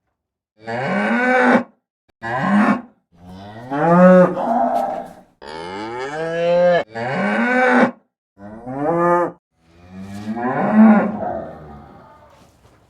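Cows mooing: about seven separate moos in a row, each about a second or two long, several bending upward in pitch, the last one the longest.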